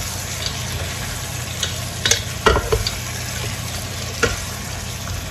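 Pork sizzling in a pan with soy sauce and vinegar, as it is stirred. A handful of sharp knocks of the utensil against the pan come between about one and a half and three seconds in, and one more just past four seconds.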